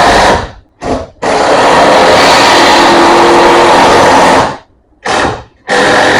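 Handheld power tool running in bursts, switched off and on: a short burst at the start, a brief blip about a second in, a long run of about three seconds, another blip about five seconds in, then it starts again near the end.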